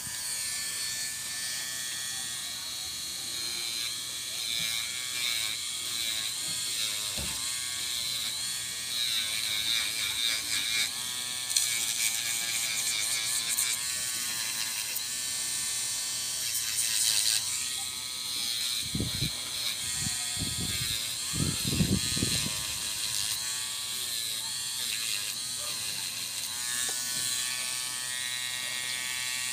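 Electric nail drill with a sanding band running steadily, whining as it files soft gel nail extensions, with a few low thumps about two-thirds of the way through.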